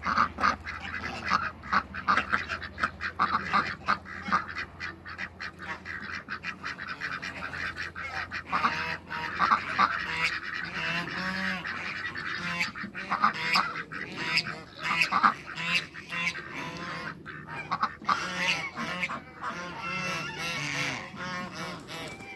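A flock of domestic ducks quacking over and over, with many short calls overlapping throughout.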